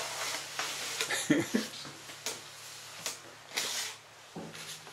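Short, scattered rustles and soft handling noises as a limp dog is shifted about on a nylon stretcher.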